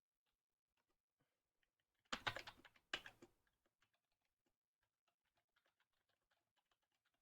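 Faint computer keyboard typing: quick, light key clicks. A little over two seconds in come two louder, brief noises under a second apart.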